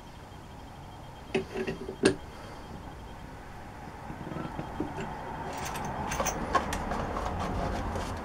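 Two sharp metal clinks about a second and a half in, then a Turnell & Odell lathe running with a countersink in the tailstock chuck cleaning out a hole. The running sound grows louder, with a scatter of small ticks.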